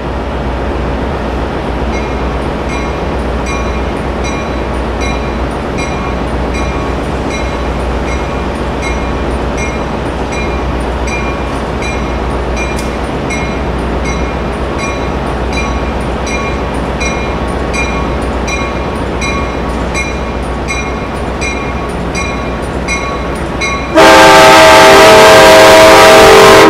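Railroad crossing bell ringing about twice a second over a low rumble, then an Amtrak Pacific Surfliner train's horn sounds very loudly near the end, a chord of several steady notes with a brief break.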